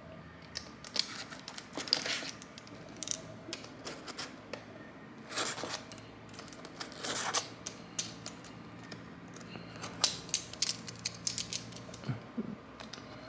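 Cardboard box and packaging being opened by hand: irregular clicks, scrapes and rasping rustles, with several longer tearing or sliding rasps, as tape and flaps give way and contents are handled.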